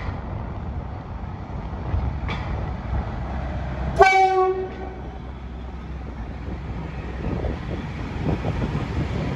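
VL10U electric locomotive hauling a container train, rumbling on the rails as it approaches and passes. About four seconds in it gives one short horn blast, just over half a second long. The rumble grows louder near the end as the loaded container wagons roll by.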